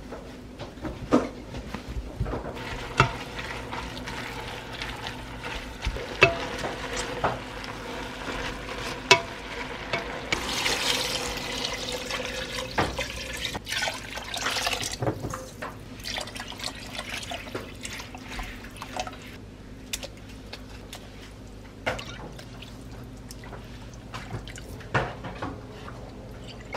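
Kitchen tap running into a sink in two short spells, about ten and fourteen seconds in, with scattered clicks and knocks around it.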